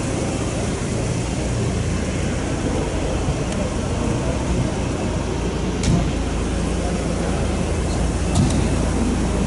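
Busy exhibition-hall ambience: a steady din of many indistinct voices over a low hum, with a couple of short knocks.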